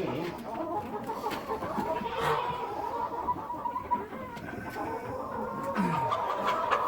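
A flock of chickens clucking and calling together as they feed, with a louder squawk about two seconds in.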